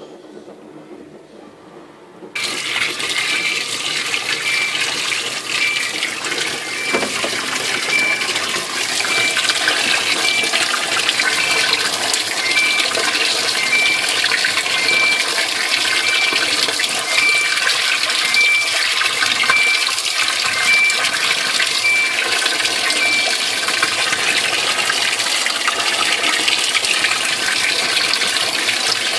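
A Waveforce 14 kg top-loading washing machine filling: water starts to gush suddenly about two seconds in and keeps pouring steadily through the dispenser into the drum.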